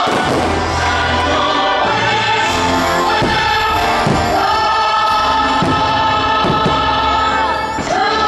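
Fireworks show soundtrack played loud over the park speakers: a choir singing over orchestral music, with several firework bangs through it.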